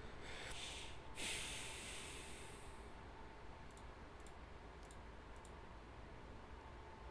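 A loud breath from a person at a computer about a second in. Then four soft computer-mouse clicks, roughly half a second apart, as position filter tabs are selected in the draft app.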